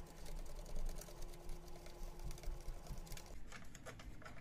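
3D-printed ABS Z carriage being wound down its M6 threaded rod: a rapid run of small plastic-on-thread clicks with a faint steady whine under it. Both stop about three seconds in, and a few separate clicks follow.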